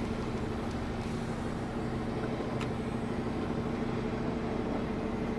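Heavy rotator wrecker's engine and boom hydraulics running steadily with an even hum while the boom is worked from a remote control.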